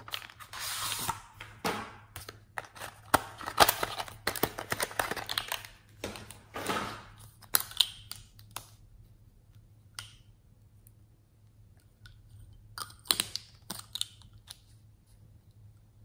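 Close handling of a cardboard-and-plastic lipstick box as it is opened and the lipsticks are taken out, crinkling and rustling with sharp clicks, dense for the first half. Near the end there are a few more plastic clicks as lipstick tubes are handled and a cap comes off.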